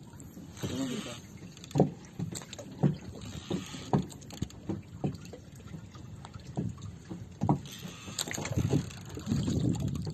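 Water slapping and knocking against the hull of a small outrigger boat drifting on open water, with about ten low knocks at irregular intervals and wind on the microphone. The water noise grows louder near the end.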